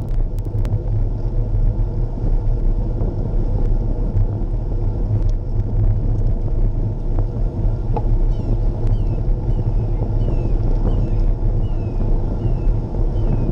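Wind rumbling steadily on the microphone of a camera riding on a moving road bicycle. From about halfway through, short falling chirps repeat about twice a second.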